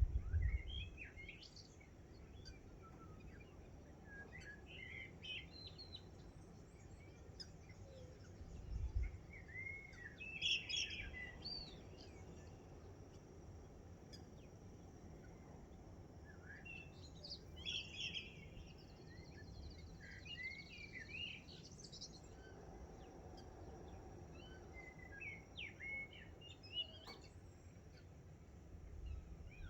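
Dawn chorus of several birds giving short, overlapping chirps, whistles and trills, scattered through the whole stretch. A few brief low rumbles on the microphone stand out as the loudest moments, near the start, about a third of the way in and near the end.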